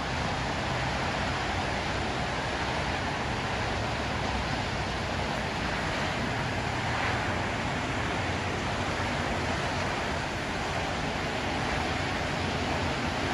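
Steady rushing hiss of a rainstorm, mixed with tyre noise from traffic on the wet highway below, with a low rumble underneath.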